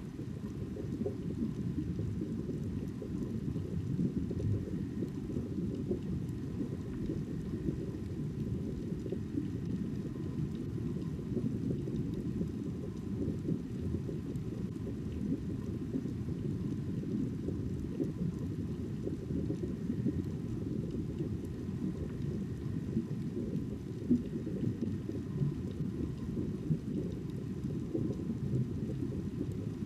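Steady, muffled underwater ambience: a deep, continuous rumble with faint steady tones above it and no distinct events.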